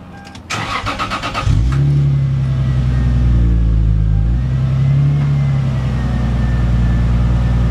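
Lexus GS300's 2JZ-GE inline-six, heard at the tailpipe of its Tanabe Medalion Touring cat-back exhaust, cranking on the starter for about a second and then catching. It settles into a loud, steady, deep idle.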